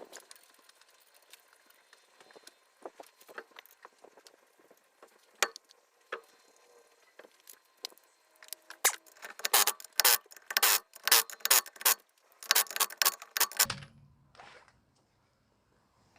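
Metal tools and parts clinking and rattling: scattered clicks at first, then a dense run of rapid, loud clicks and rattles about halfway through that stops abruptly, followed by a faint low hum.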